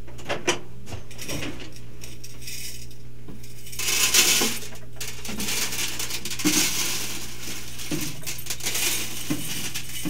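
Hundreds of small glass Christmas light bulbs, plastic bases removed, poured from a glass jar and clinking and clattering as they pile up on the microwave turntable. A few isolated clicks come first, then a dense pour starts about four seconds in.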